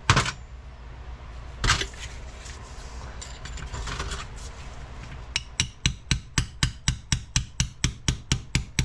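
Hammer striking a long steel pin punch to drive a roll pin out of a shift fork on an NP205 transfer case's shift rail. A single blow near the start and another a couple of seconds in, then from about five seconds in a steady run of quick blows, about three a second.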